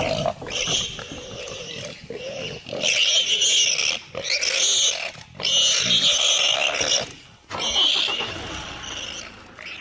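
A big cat and a wild pig fighting: the cat growls while the pig gives harsh squeals in loud bursts of a second or two.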